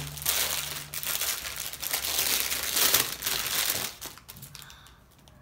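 Plastic packaging crinkling as a pink poly mailer bag and a squishy toy's clear plastic wrapper are handled and opened. It is dense for about four seconds, then dies away.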